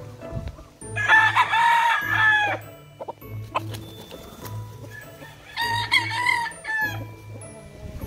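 Gamefowl rooster crowing twice: a long crow about a second in and a shorter one near six seconds. Background music with a steady beat underneath.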